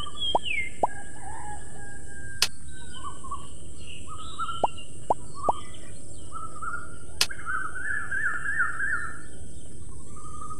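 Birds chirping and trilling over a steady high hiss, with a few short rising plops like water drips and two sharp clicks, one about two seconds in and one about seven seconds in.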